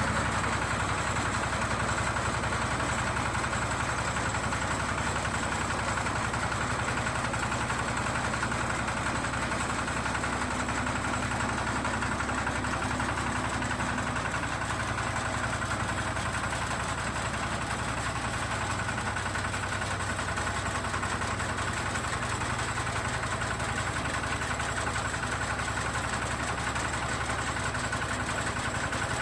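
TAGRM 4LZ-1.2 mini rice combine harvester running, a steady mechanical engine drone with no change in pitch or level.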